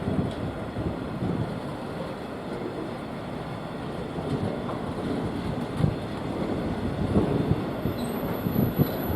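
Freight train passing on the rails, the wagons' wheels rumbling steadily over the track, with a thin high whine coming in near the end.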